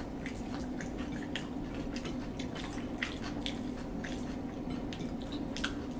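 People eating rice with their hands: wet chewing and lip-smacking, with irregular small clicks and squelches, over a steady low hum.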